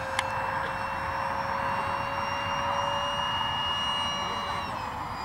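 A Wings Maker J-10B RC jet's 70 mm five-blade electric ducted fan, driven by an outrunner motor, is whining in flight: a steady high tone over a rushing hiss. The tone steps down slightly in pitch near the end as the throttle is eased. A single short click comes a moment in.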